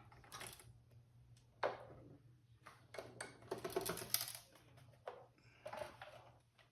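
Scattered light clicks, taps and scrapes of hands and tools handling a desktop computer case and its metal parts while hunting for a screw dropped inside it.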